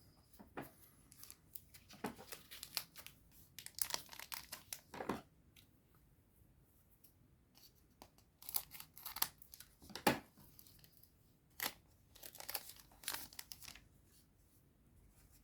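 A foil booster pack of trading cards torn open and its wrapper crinkled, in two spells of short crackling tears and rustles.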